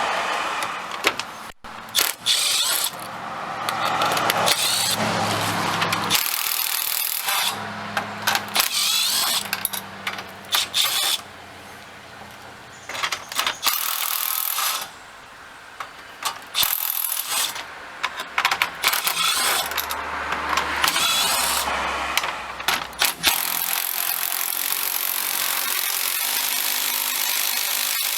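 A cordless drill or driver running in several stretches of a few seconds, with clicks and metal rattles in between, as it spins off the nuts holding chrome billet grille inserts.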